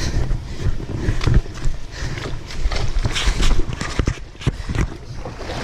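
Quick, irregular footsteps over a rocky creek bed.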